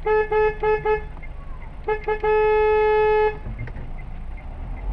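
Car horn honking: a run of short toots, then a long steady blast of about a second, over the low hum of a car driving.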